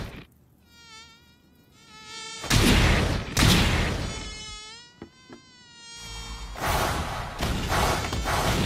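Animated mosquito sound effect: a high, wavering whine that comes twice, broken by two loud rushing swipes in between. A steady rushing noise takes over near the end.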